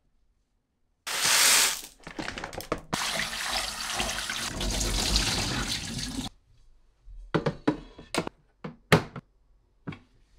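Kitchen tap running into a sink for about five seconds: it opens with a hard gush and is shut off abruptly. A few sharp knocks and clatters follow.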